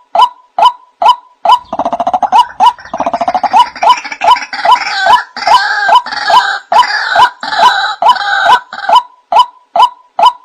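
White-breasted waterhen (ruak-ruak) calling: a steady series of short, clipped calls, a little over two a second. From about a second and a half in to near the end, a second, harsher rattling chorus of calls joins over the series, then the plain series goes on alone.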